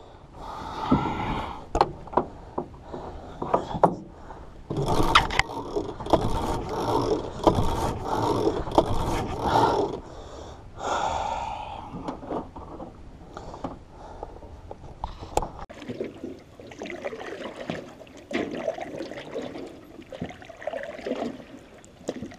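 Irregular knocks and scrapes, with wind rumbling on the microphone until about two-thirds of the way through.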